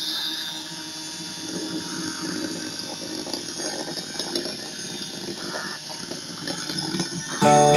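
Small electric motor whirring steadily as it spins the propeller of a popsicle-stick toy biplane. Music comes in near the end.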